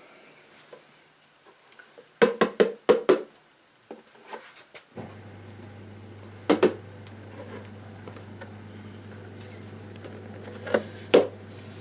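Clacks and knocks of a plastic tub and terrarium parts being handled: a quick run of sharp clacks about two seconds in, then single knocks later on. A low steady hum starts abruptly about five seconds in.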